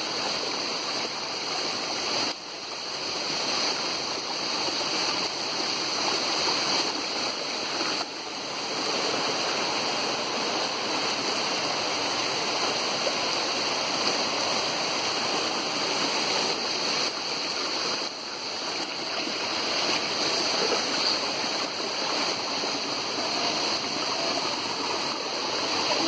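Steady rushing of a waterfall, an even wash of falling water.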